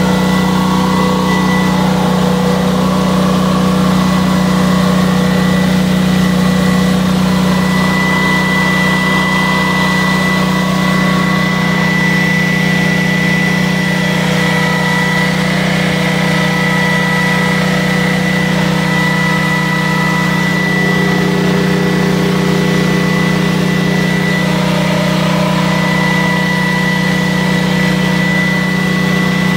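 The 19 hp Generac overhead-valve engine of a 10,000-watt generator running steadily at its governed speed. It is fed from a temporary gravity fuel line and is running again after its carburettor was cleaned.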